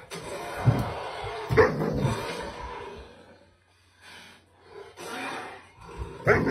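A dog barking several times, with a short pause in the middle.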